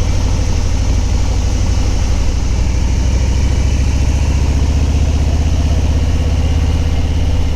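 Harley-Davidson touring motorcycle's V-twin engine running steadily at cruising speed, with a loud chorus of cicadas droning high over the engine.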